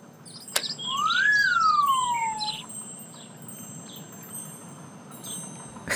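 Cartoon sound effect: a click, then a whistle that glides up and back down over about a second and a half under a sprinkle of twinkling chimes, followed by faint bird-like chirps.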